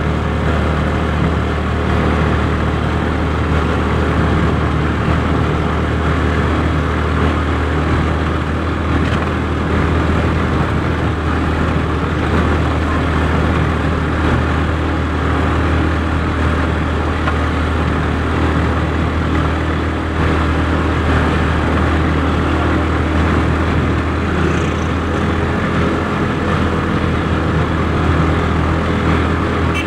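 Steady engine and road noise heard from inside a moving vehicle, with a strong low hum and an even rushing noise.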